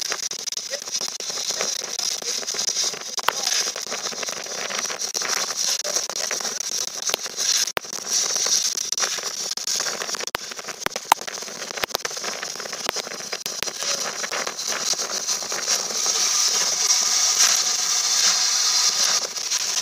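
Steam hissing from a standing LNER Thompson B1 steam locomotive: a steady high hiss that swells louder near the end, with a few light clicks in the middle.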